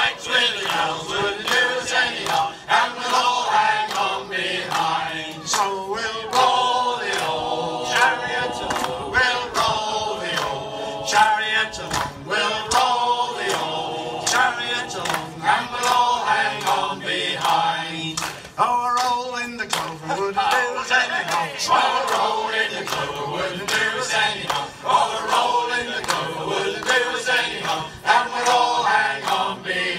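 Sea shanty choir of men and women singing together, with a steady beat under the voices.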